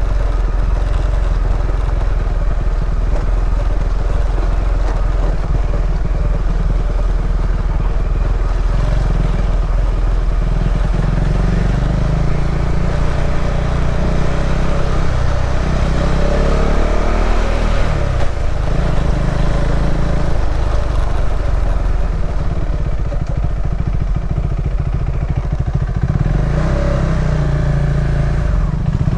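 KTM 390 Adventure's single-cylinder engine running as the bike is ridden, its pitch rising and falling with the throttle around the middle.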